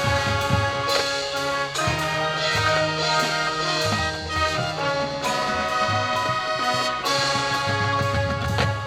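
Marching band playing: the brass section holding loud chords over drum hits.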